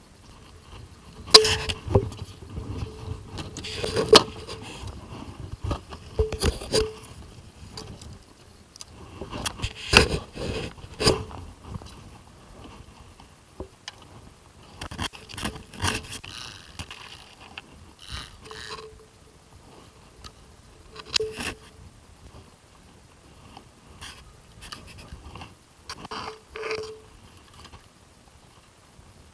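Irregular handling noise: scraping, rubbing and knocking strokes spread through, louder in clusters, some with a brief squeaky note.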